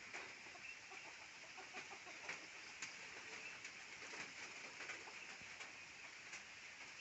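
Local free-range chickens clucking softly now and then, with scattered short taps and a steady high hiss underneath.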